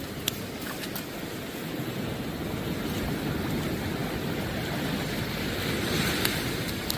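Sea surf washing onto the beach, with wind on the microphone; the wash swells around six seconds in, and a few short clicks stand out.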